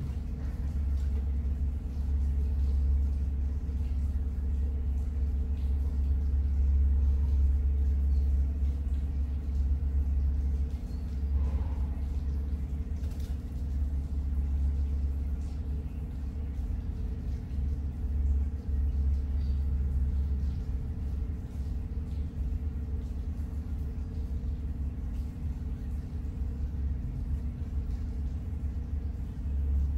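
Steady low mechanical rumble with a faint hum running through it.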